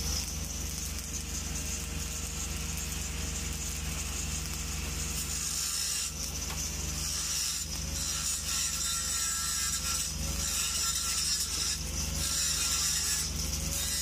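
Electric welding arc crackling and sizzling steadily, with a steady low hum underneath.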